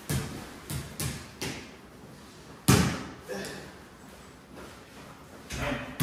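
Small ball shot at a mini basketball hoop, knocking against the backboard and bouncing on a concrete floor: a string of sharp knocks, the loudest a little under three seconds in.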